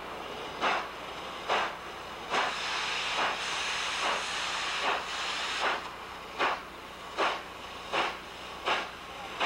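Chesapeake & Ohio 4-8-4 steam locomotive No. 614 working, its exhaust chuffing a little over once a second and gradually quickening as it gathers speed. A strong hiss of steam swells over the beats for a few seconds mid-way.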